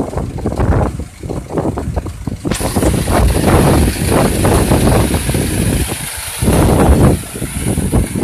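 City bus engine running at a stop, a low uneven rumble. A steady hiss sets in suddenly about two and a half seconds in and keeps going.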